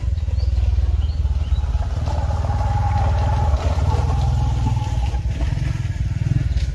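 A small engine running close by: a steady low drone with fine, even pulsing, and a fainter higher tone joining in over the middle few seconds.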